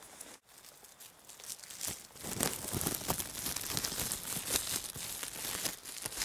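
Crinkly rustling and crackling close to the microphone, growing much louder about two seconds in and going on as dense crackles.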